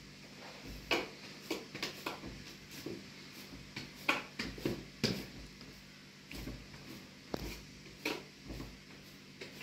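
Hands kneading and patting a large mass of bread dough in a metal basin: soft, irregular slaps and presses, about one or two a second.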